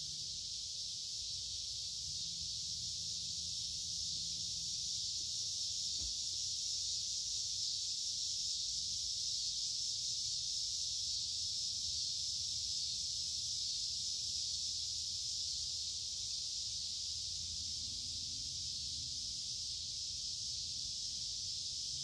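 Chorus of many cicadas singing together: a continuous, even high-pitched buzz that holds steady without a break.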